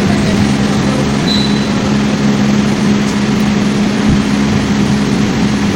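Steady vehicle engine drone with a constant low hum, running evenly without change.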